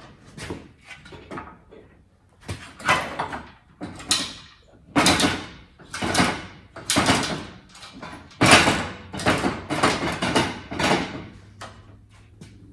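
A series of short scraping or rasping strokes, about one to two a second, loudest in the middle stretch and fading toward the end, from hand work on the car.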